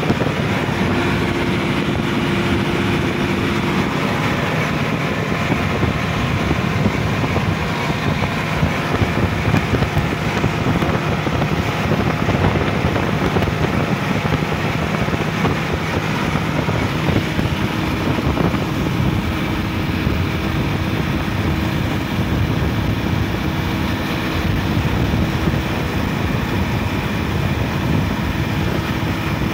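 Sonalika DI-50 RX tractor's diesel engine running steadily while driving at road speed, heard close up from the driver's seat.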